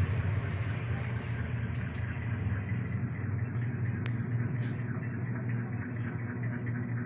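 A motor running steadily with a low rumble, with faint short high chirps now and then above it.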